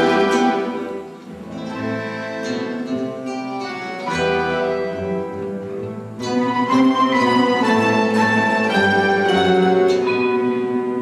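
Orchestra of plucked folk strings, domras and acoustic guitar, playing slow music. It drops quieter about a second in and swells louder again about six seconds in.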